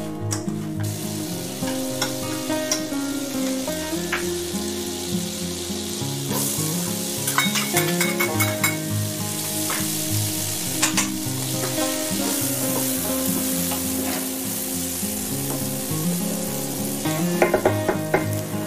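Diced onions sizzling in butter in a frying pan, the hiss starting about a third of the way in, with a wooden spoon clicking against the pan as they are stirred. Instrumental background music plays throughout.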